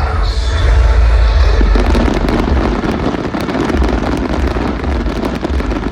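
Firework display: deep booming rumble from shell bursts, then from about two seconds in a dense, rapid crackling of many small pops.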